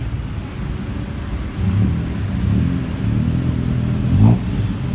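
Street traffic with a motor vehicle engine running close by. The engine grows louder about one and a half seconds in and rises briefly in pitch near the end.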